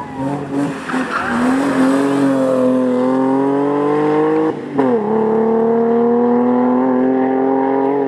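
BMW E30 race car's engine at full throttle. The note rises and falls quickly in the first second, then climbs steadily in pitch. About five seconds in, an upshift drops the note briefly before it climbs again.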